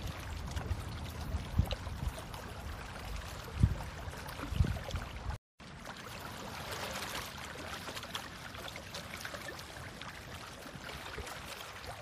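Digging in waterlogged mud: wet splashing and trickling water, with a few low thumps in the first half and a brief cut-out of the sound about five and a half seconds in.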